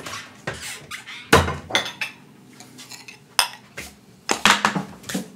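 Tableware and packaging handled and set down on a kitchen table: a string of sharp clinks and knocks, the loudest about a second in.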